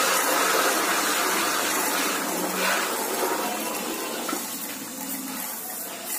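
Belt-driven HTP high-pressure spray pump running, its gun jetting water into a plastic bucket: a steady hissing gush over the pump's low hum.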